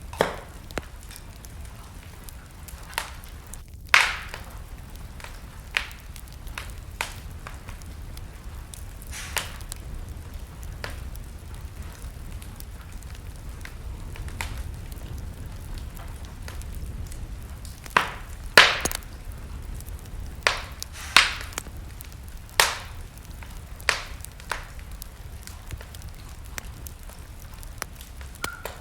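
Wood fire burning in a fireplace: a steady low rumble of flame with irregular sharp crackles and pops, a cluster of louder pops in the second half.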